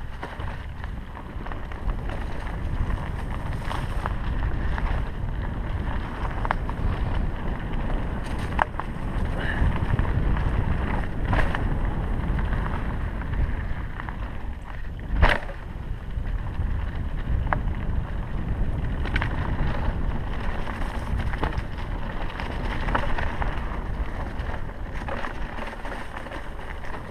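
Mountain bike riding fast down a dirt forest trail: wind buffeting the microphone over the rumble of knobby tyres on the ground, with the bike rattling and clicking over bumps and roots. One hard knock about fifteen seconds in is the loudest sound.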